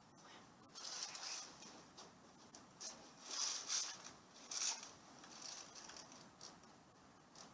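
Soft, irregular rustling from movement close to the microphone, in short bursts that are loudest around three to five seconds in.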